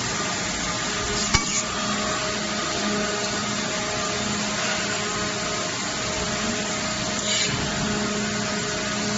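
Automatic stud welding line for cookware running: a steady mechanical noise with a low hum, one sharp click about a second and a half in, and a short hiss about seven seconds in.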